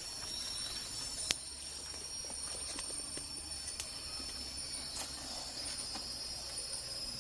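Forest ambience at dawn: steady, high-pitched insect calls hold without a break, with a few sharp clicks or taps, the clearest about a second in.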